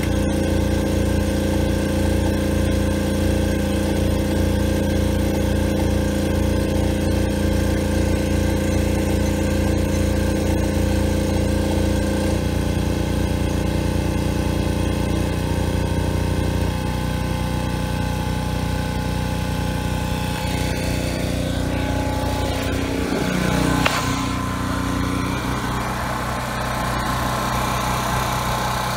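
Predator 3200-watt portable generator's engine running steadily under a load of electric space heaters. Its pitch shifts a few times as the load changes, with a sharp click and an unsettled, falling stretch a little over 20 seconds in before it settles again.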